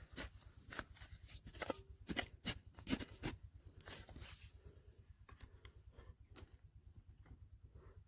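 Irregular scraping and clicking of digging through stones and gravel. The strokes come thickly for the first few seconds and then thin out, over a steady low hum.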